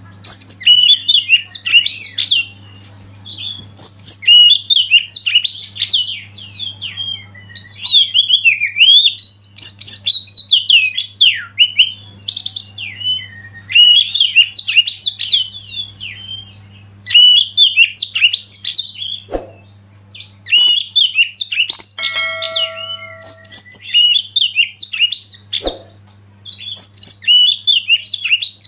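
A songbird singing rapid, varied high chirping and whistled phrases in bursts of a few seconds with short pauses between, over a steady low hum. About 22 seconds in, a short steady whistle-like call sounds, and two sharp clicks come a few seconds apart.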